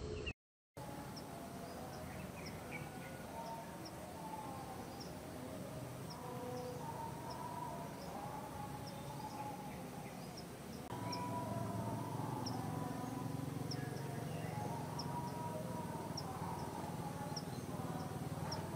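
Outdoor background sounds: faint, short, high chirps repeating about twice a second over wavering mid-pitched tones that rise and fall. A low hum grows louder about eleven seconds in, and the sound drops out for a moment just after the start.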